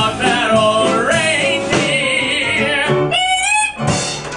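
Male singer performing a show tune with piano and drums accompaniment, his voice bending upward on a sung note about three seconds in.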